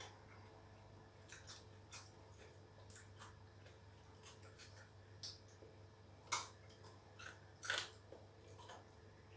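A person eating with his fingers: soft chewing and mouth smacks with scattered short clicks, the two loudest a little past the middle, over a faint steady hum.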